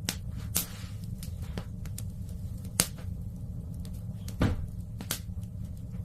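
Wood fire in a fireplace crackling, with about five sharp pops at uneven intervals over a steady low rumble.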